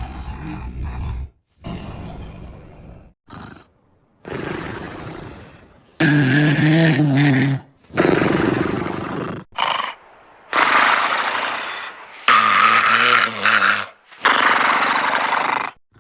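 Cartoon dog's loud comic snoring: a run of long snores with short breaks between them, two of them carrying a deep buzzing tone.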